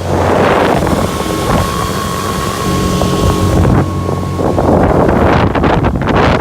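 Motorboat engine running steadily under way, with wind buffeting the microphone in loud gusts and water rushing past the hull.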